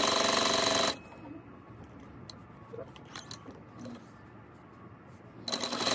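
Sewing machine stitching a seam, running steadily for about a second and then stopping; a few faint clicks follow as the fabric is handled, and the machine starts stitching again near the end.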